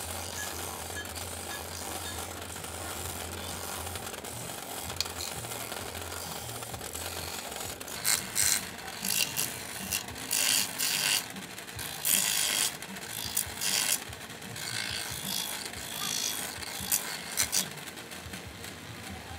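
Small bench grinder running, with a machete's blade held against its buffing wheel to finish the edge: a steady hum, then from about eight seconds in a string of loud, irregular rasping strokes that die away near the end.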